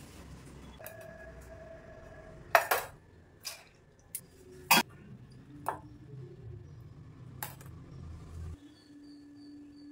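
Stainless steel bowl and mesh strainer clinking and knocking together as soaked dal is tipped into the strainer to drain: several sharp, irregular metal clinks, the loudest about two and a half and nearly five seconds in.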